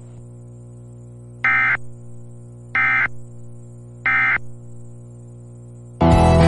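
Emergency Alert System end-of-message data tones: three short buzzy bursts of digital tone, a little over a second apart, over a faint steady hum on dead air. A country song cuts in about six seconds in.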